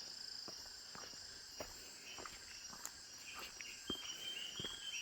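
Footsteps walking down a steep trail, a soft step about every half second, under a steady high insect chorus. Near the end a short, high whistled call rises slightly.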